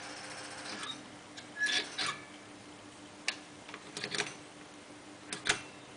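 Irregular clicks and light knocks, about half a dozen, the loudest around a second and a half to two seconds in, over a steady low mains hum from the energised transformer equipment.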